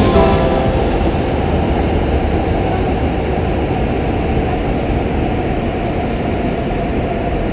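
Steady rumbling noise of a Hokuriku Shinkansen train running, even throughout with no rises or falls.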